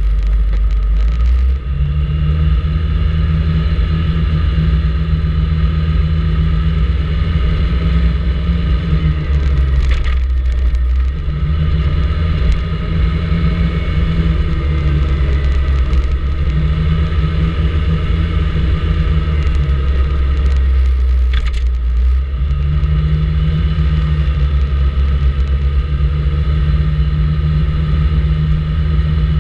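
Vespa GTS 300 ie scooter's single-cylinder four-stroke engine running on the move, a steady drone whose note falls away briefly a few times.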